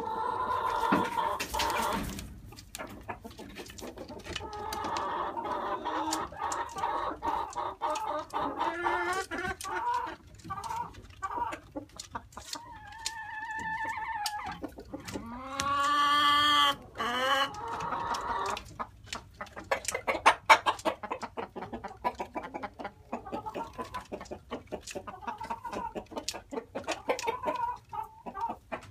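Chickens clucking and calling, with a rooster crowing once about halfway through. Many sharp clicks and taps fill the last third.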